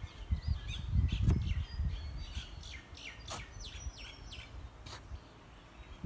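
Birds calling: a quick run of chirps and short falling whistled notes. Under them is a low, uneven rumble that dies away after about two seconds.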